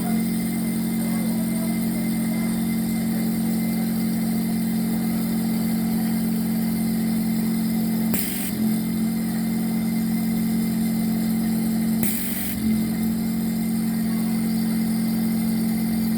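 Vacuum pump running steadily after repair with a constant hum, its faulty noise fixed. Two short noises break in about 8 and 12 seconds in.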